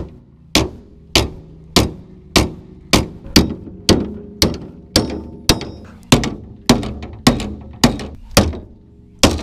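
Hand hammer striking the crumpled sheet metal of a Dodge pickup's front end in a steady rhythm of about two blows a second, each with a short metallic ring, to beat the smashed metal back into shape.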